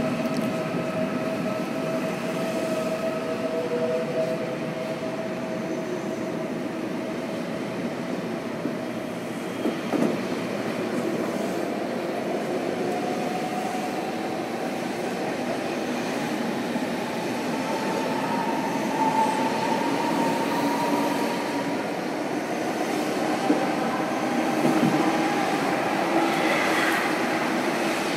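ICE T electric multiple unit, two sets coupled, pulling out of an underground station platform: wheels rolling and clacking past, with a slowly rising electric motor whine as the train gathers speed. The last car passes near the end and the sound begins to fade.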